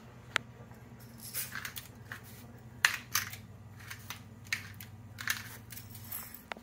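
Hand-twisted pepper mill grinding peppercorns in a string of short, irregular crunching grinds, with a sharp click near the start.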